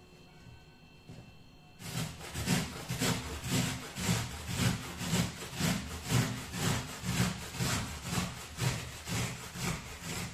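Onion being grated on a metal box grater: rasping strokes, about two a second, starting about two seconds in.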